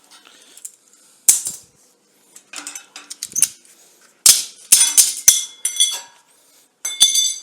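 Metal clamps being undone and taken off a cast iron piece: a series of sharp metallic clanks, knocks and rattles, loudest in the middle, with the last knock near the end ringing briefly.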